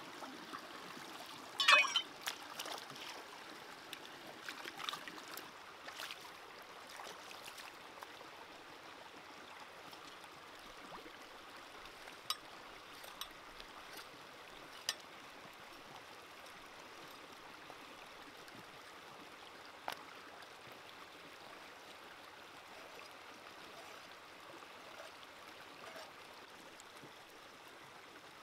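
Shallow stream running steadily over rocks. About two seconds in there is a loud burst of splashing as the pork ribs are swished in the water, and later a few sharp single knocks from a cleaver cutting the ribs on a rock.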